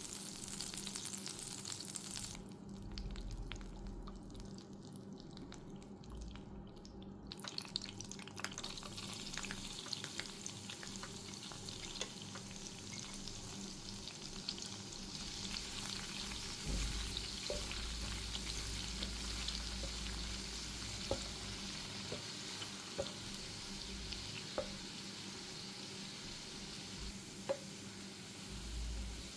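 Chicken sizzling as it fries in a pan, stirred now and then, with scattered sharp clicks of a utensil against the pan. The sizzle thins out for a few seconds about two seconds in.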